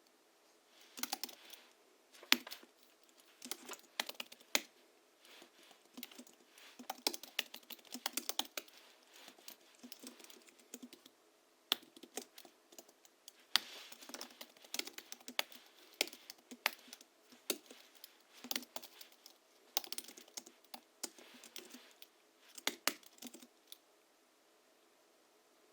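Typing on a Hansung GHL-5X keyboard tuned with 50 g rubber domes and Krytox-lubricated springs: irregular bursts of soft keystrokes with a few sharper, louder strokes. The typing stops a couple of seconds before the end.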